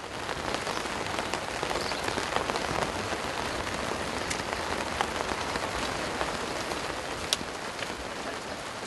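Steady rain falling on a greenhouse's polythene sheeting: an even hiss with scattered sharp drop ticks, one louder about seven seconds in.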